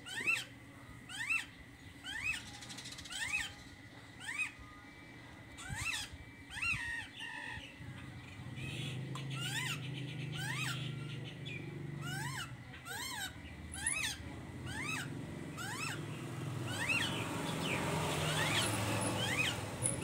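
A caged songbird calling over and over in short chirps that rise and fall in pitch, about one or two a second. From about eight seconds in a low hum runs underneath, and a hiss builds near the end.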